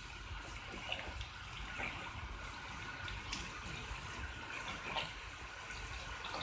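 Fried onions, spices and tomato paste sizzling in a frying pan while being stirred with a spoon, with scattered light clicks and scrapes against the pan.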